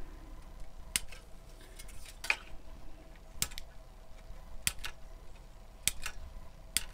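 Hobby knife blade cutting through plastic sprue gates to free a model track section, each gate giving a sharp click or snap. There are about six clicks, roughly one a second.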